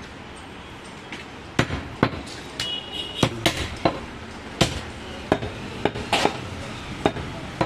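Butcher's blade chopping goat meat: about a dozen sharp, irregular chops, roughly two a second, starting about a second and a half in.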